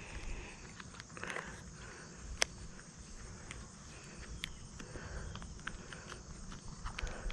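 Insects humming steadily at a high pitch, with scattered small clicks and one sharp tick about two and a half seconds in.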